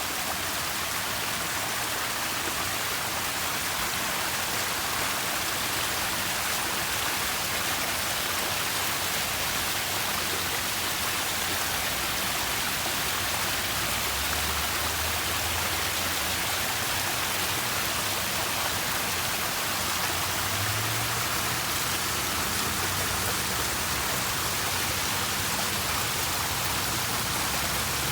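Steady rush of falling, splashing water, an even hiss with no breaks.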